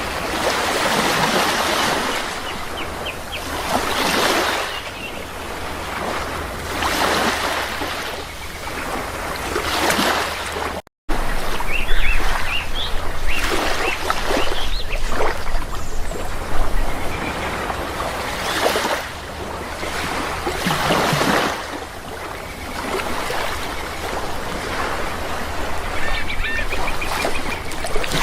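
Sea waves breaking and washing in, surging and fading every few seconds, with birds calling several times over the surf. The sound cuts out for a split second just before halfway.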